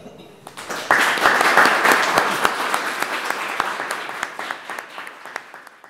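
Audience applauding: a dense patter of many hands that swells within the first second, then slowly dies away.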